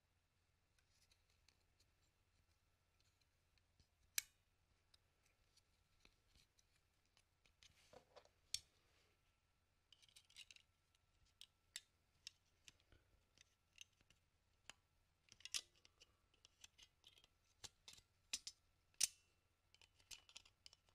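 Irregular small clicks and scrapes of a thin metal tool and fingers working at the scroll-wheel spring and plastic housing of an opened wireless mouse. The loudest clicks come about four seconds in and near the end.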